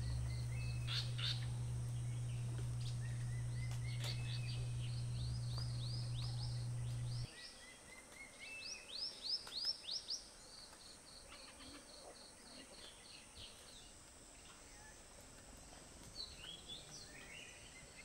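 A steady low hum, the loudest sound, runs for about seven seconds and then cuts off suddenly. Over it and after it, forest birds call in quick runs of short, high, falling chirps, with a faint steady high-pitched tone underneath.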